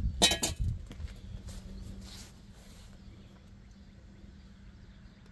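Work-boot footsteps scuffing on a concrete sidewalk close by in the first second, then a quiet outdoor background with a faint steady hum.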